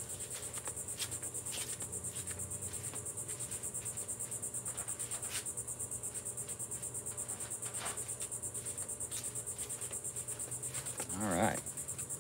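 Insects chirping in a steady, high-pitched, rapidly pulsing trill, with a brief human voice near the end.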